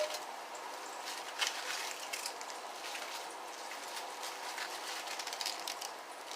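Chopped cabbage being put into a big pot: scattered rustles and light clicks as the pieces drop in, over a steady background hiss.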